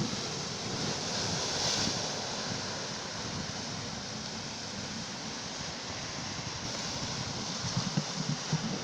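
Sea waves washing in as a steady rush of surf, swelling slightly about two seconds in, with wind buffeting the microphone in low gusts near the end.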